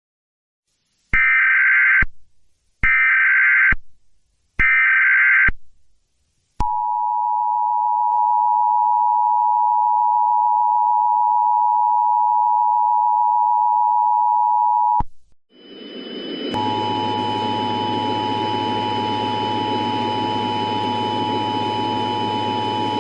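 Emergency Alert System header: three one-second bursts of warbling data tones, then the two-tone attention signal (853 and 960 Hz), held steady for about eight seconds. After a short break, the two-tone signal returns with hiss and a low hum under it. The alert comes ahead of an Emergency Action Notification.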